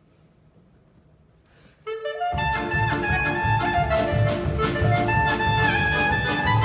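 Near silence, then about two seconds in a klezmer band enters with a quick rising run and plays a lively wedding tune with a steady beat: clarinet, accordion, saxophone, bass, piano and percussion.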